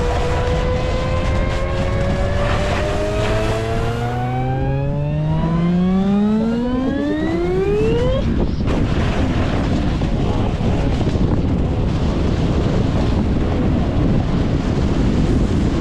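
Steady rush of wind and snow, from a snowboard run, throughout. Over it, a tone rises steadily in pitch for about eight seconds, then cuts off abruptly just past the middle.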